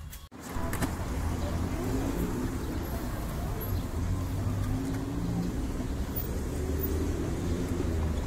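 Street traffic noise: a steady low rumble of cars on a nearby road, starting abruptly less than a second in.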